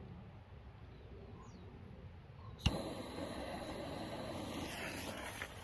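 Ghost Buster Crackers firework going off: a sharp pop about two and a half seconds in, then a loud rushing hiss for about three seconds that cuts off.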